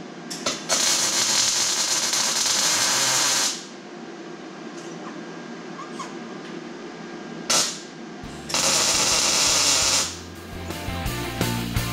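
Electric welder tack-welding steel exhaust pipe to a muffler: two steady crackling runs of the arc, about three seconds and then a second and a half, each started by a brief strike. Background music with a beat comes in near the end.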